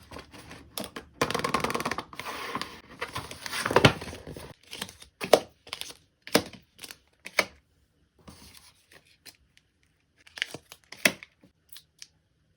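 Unboxing a Valentino foundation: packaging tears and crinkles for about three seconds, then a run of separate sharp clicks and taps as the box and bottle are handled.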